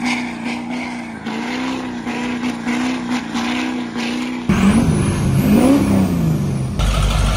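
Diesel pickup truck engine held at high, steady revs, then revving up and down after an abrupt change about two-thirds through, with a deep rumble near the end.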